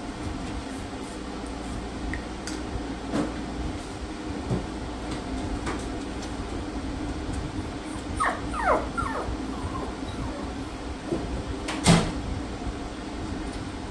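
Small dog, a Yorkipoo, whining: a quick run of three or four short, falling whines about eight seconds in. A steady hum runs underneath, with a few light clicks and one sharp knock near the end.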